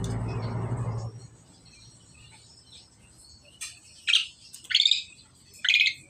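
Asian pied starlings (jalak suren) calling: three short, harsh calls in the last two seconds, each under half a second. A steady low hum runs underneath and stops about a second in.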